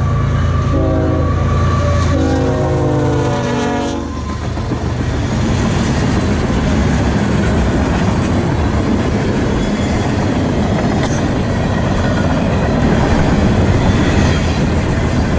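Diesel locomotive of a manifest freight train sounding its multi-chime horn through the first four seconds, with a short break, over the low running of its engine. Then the freight cars roll past with a steady rumble and wheel clatter on the rails.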